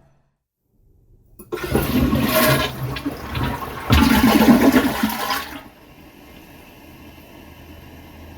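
Toilet flushing. After about a second and a half of silence comes a loud rush of water lasting about four seconds, which then drops to a faint steady hiss.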